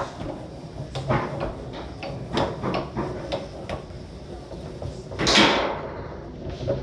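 Foosball in play on a Tornado table: the hard ball clacks sharply against the plastic men and the table walls, with a louder, longer rattle about five seconds in.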